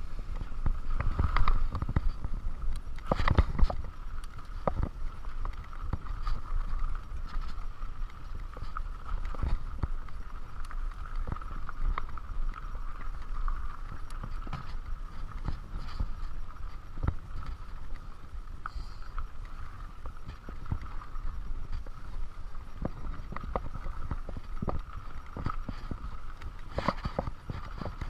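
Mountain bike ridden over a rough dirt trail: tyres rumbling on dirt with frequent knocks and rattles from the bike over bumps, busiest in the first few seconds, over a steady whir.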